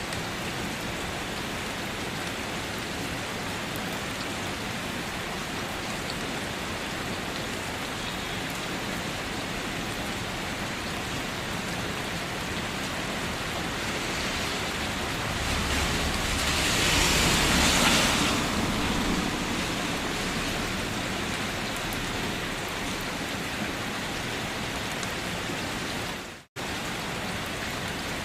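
Steady rain falling, an even hiss. About halfway through it swells louder for a few seconds with a low rumble underneath. Near the end the sound cuts out completely for a split second.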